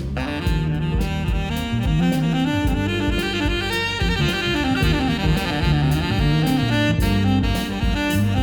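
Background jazz music with saxophone over a steady beat.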